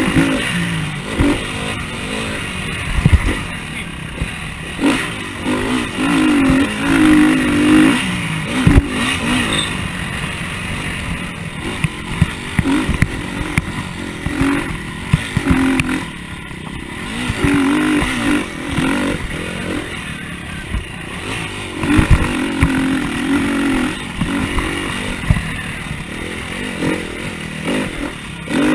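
KTM motocross bike's engine revving up and down repeatedly at race pace, with short sharp knocks and rattles from the bike over the rough track.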